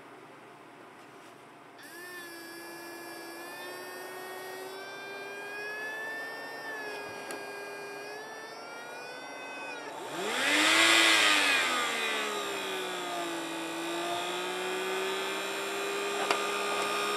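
Small DC motor spinning a plastic fan impeller, powered from a bench power supply. It starts whining about two seconds in, its pitch wavering as the current is turned up. About ten seconds in it gets louder, its pitch swooping up and back down, and then it runs steadily.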